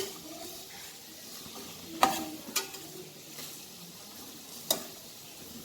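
Sliced vegetables sizzling in hot coconut oil in a kadai while they are stirred, with a few sharp clinks as the spatula knocks the pan.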